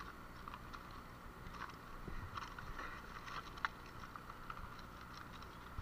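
Faint steady rush of river water, with scattered small clicks and taps from the speargun and pebbles being handled.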